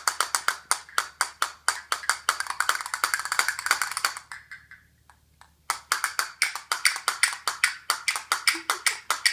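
Castanets played in fast runs of sharp wooden clicks, stopping briefly about halfway through and then starting again.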